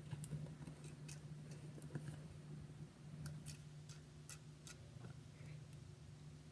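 Faint, irregular light clicks and taps of a utensil against the container as slime ingredients are stirred together, over a low steady hum.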